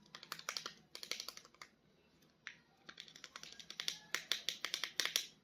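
Small hard-plastic clicks and taps from handling action-figure toys, in quick irregular runs. The runs pause for about a second around two seconds in, then come back denser.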